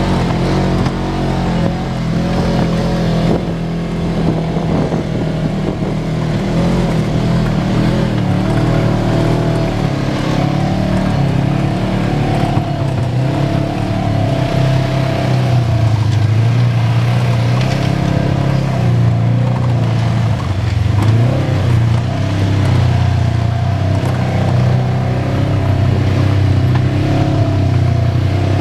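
Side-by-side UTV engine running steadily at low trail speed, heard from on board, its pitch rising and falling a little with the throttle.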